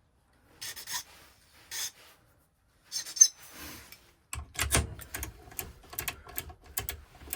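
Small metal parts being worked by hand: a few short rasping, filing-like strokes, then from about halfway a quick run of small clicks and taps, as a freshly cut key is handled with a Ford 5-pin ignition lock cylinder.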